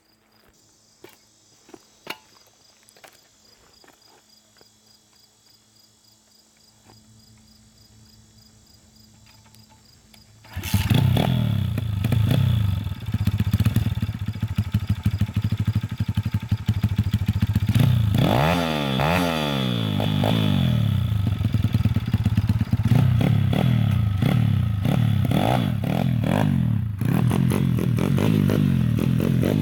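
150cc four-stroke GPX engine of a pit bike, quiet apart from a few light clicks until it starts about ten seconds in, then running loudly and revved repeatedly in rising and falling sweeps.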